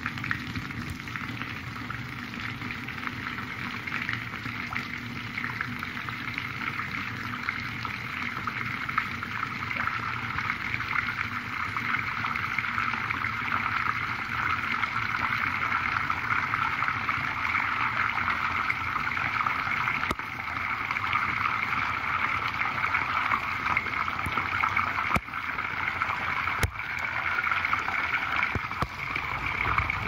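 Water draining down a basin plughole, heard through a submerged microphone: a steady rush of water that grows somewhat louder about midway, with a few brief dips near the end.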